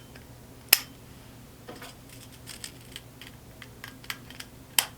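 Plastic contact blocks being snapped onto the back of an industrial push button: small handling clicks, with two sharper snaps, one under a second in and one near the end.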